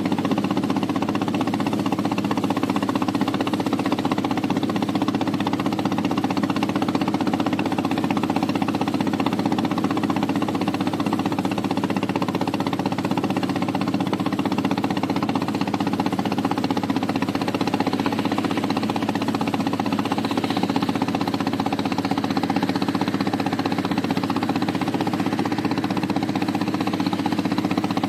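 Engine of a small wooden river boat running steadily while under way. Its pitch and loudness stay even throughout.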